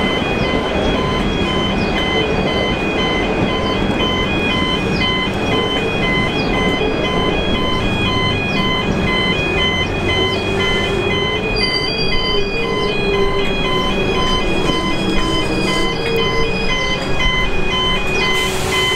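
Level crossing warning bells ringing in a steady, evenly repeating pattern over the rumble and clatter of V/Line passenger carriages rolling past. A thin, high steady squeal from the wheels comes and goes about halfway through.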